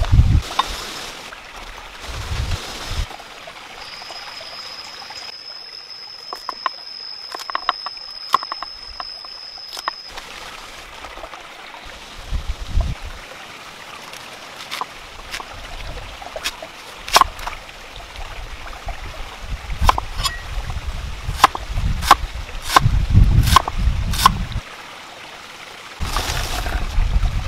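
Kitchen knife cutting winged beans and red cabbage on a wooden chopping board: sharp knocks at uneven intervals, with low rumbling in between. A thin, high, steady tone sounds from about four to ten seconds in.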